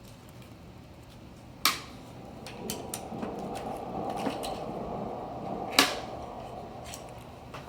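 Parts of an electric scooter's folding mechanism handled while its centre pivot is taken out: two sharp clicks, about one and a half and six seconds in, with scraping and small knocks between them.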